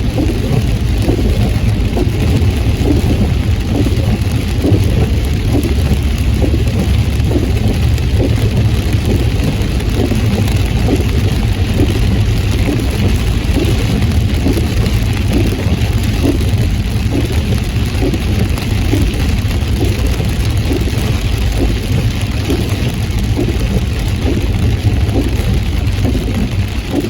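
Heavy rain beating on a moving car, over a steady low rumble of road and engine.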